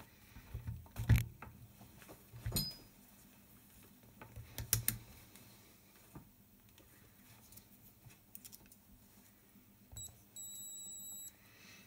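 Clicks and knocks of an EEVblog BM235 digital multimeter and its probe leads being handled on a bench, the loudest about a second in. Near the end the meter gives a short tick and then a steady high beep just under a second long as its buttons are pressed.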